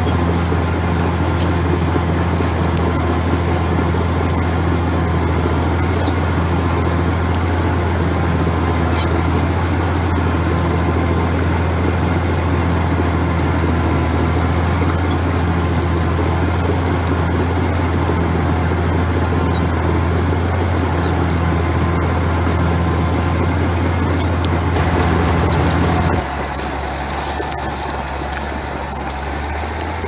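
David Brown 50 crawler's diesel engine running steadily under load as it pulls a four-furrow drag plough, heard close up from on board. About 26 seconds in, the sound drops to a quieter, more distant engine note.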